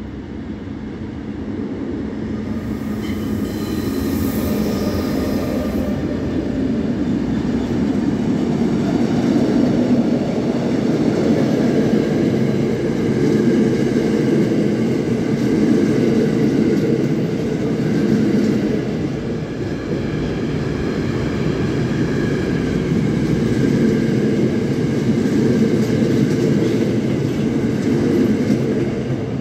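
ÖBB class 1016 Taurus electric locomotive hauling a track-construction train of hopper wagons and track machines past. It grows louder over the first few seconds, with a brief high whine, then the wagons roll by in a steady rumble and clatter.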